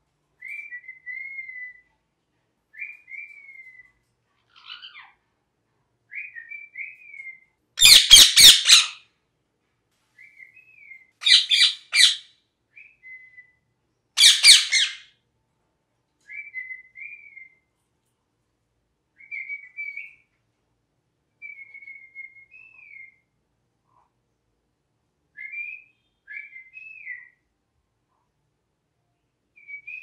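Rose-ringed (ringneck) parakeet giving short whistled chirps every couple of seconds, broken by three loud, harsh screeches near the middle.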